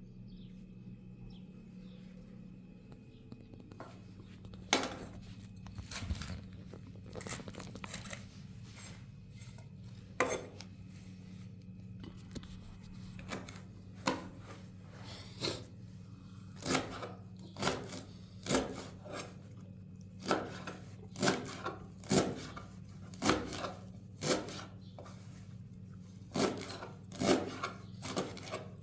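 Knife chopping chicory on a board: single sharp strokes, a few scattered at first, then settling to about one a second over a steady low hum.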